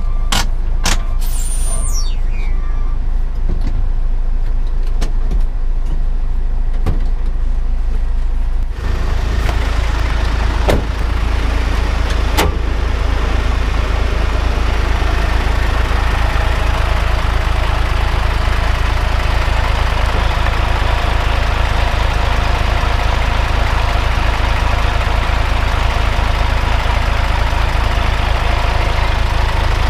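Hino 500 truck's diesel engine running with a steady low rumble. About nine seconds in, the sound abruptly becomes fuller and louder with an added rushing noise, and it then holds steady.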